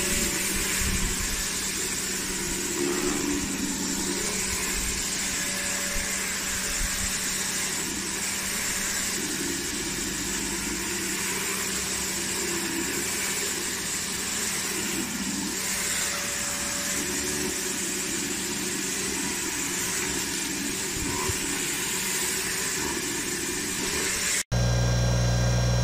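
Pressure washer running steadily with a rotary patio cleaner attachment spraying water over concrete paving slabs: a constant motor and pump hum under the hiss of the spray. Near the end the sound cuts off abruptly to a louder steady low hum.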